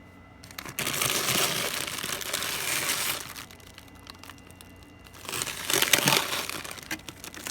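Scratching and crunching at built-up frost ice in a mini fridge's freezer compartment, in two bursts of about two and a half seconds each.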